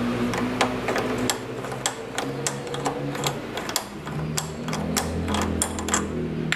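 Irregular metallic clicks from a hand tool working the nut on a car battery's terminal clamp as the battery is disconnected. A car engine runs low in the background and grows louder about two thirds of the way in.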